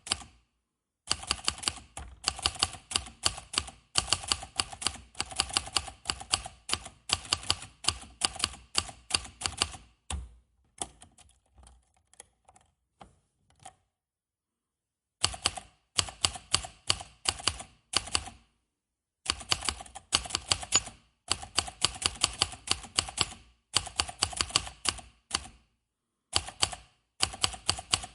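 Manual typewriter keys being struck in fast runs of clacks lasting a few seconds each, with short pauses between runs. From about ten seconds in, only a few faint, scattered clicks come for several seconds before brisk typing picks up again.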